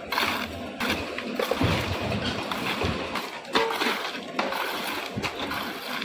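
Steel hand trowels scraping and working through freshly poured wet concrete: a run of irregular scrapes with a few short metal-on-grit knocks.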